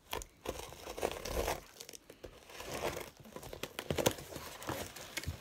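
A knife slicing into a package and the wrapping being torn and pulled open, in an irregular run of scratchy rustles and tearing sounds.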